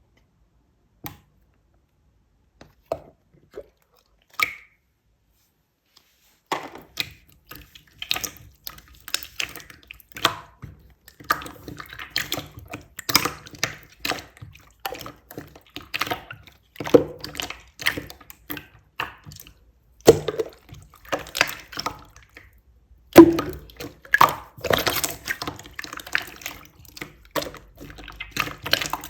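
Clear, colourless slime being squeezed and stretched by hand, giving irregular wet clicks and pops. A few scattered clicks come first, then from about six seconds in a dense run of squishing pops.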